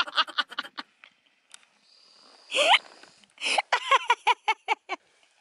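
A person laughing in quick, breathy bursts, with a pause and then a single rising squeal about two and a half seconds in, followed by another run of short laughs.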